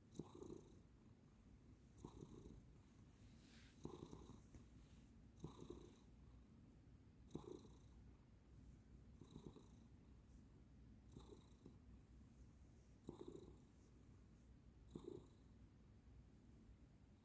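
Sleeping pet cat snoring very softly: a faint, even rhythm of breaths, about one every two seconds.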